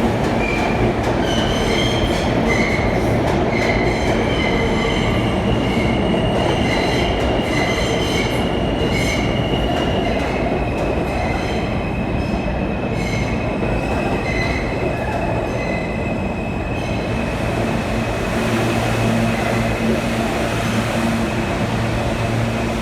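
R160B subway train moving through the station, its wheels squealing in many short high-pitched squeals over steady running noise. About 17 seconds in the squeals stop, leaving one steady high whine and a low hum.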